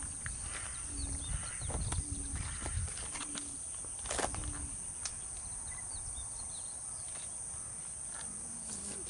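A dove cooing in short low notes about a second apart, with a few small bird chirps over a steady high hiss; a sharp click about four seconds in.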